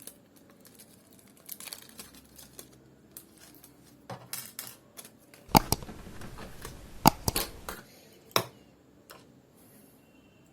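Small clicks and rattles of a 9.5 mm laptop hard-drive caddy and its tiny screws being handled and screwed in with a small screwdriver, with a cluster of sharp clicks about halfway through.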